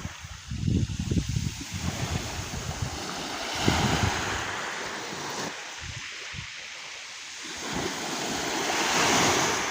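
Sea waves washing onto the shore, the surf swelling and fading, once about four seconds in and again near the end. Wind buffets the microphone with low rumbles during the first couple of seconds.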